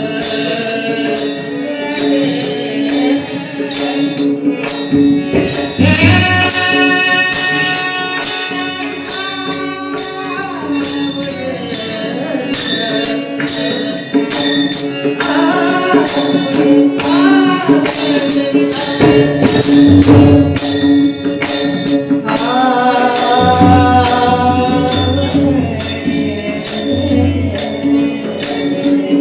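Marathi devotional abhang sung by a male voice over a steady drone, with mridang strokes and small cymbals keeping a steady beat.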